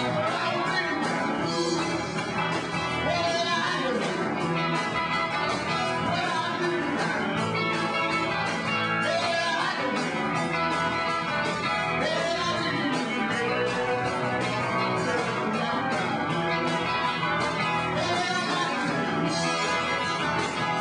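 Rock band playing live: guitar over a steady beat, with some singing.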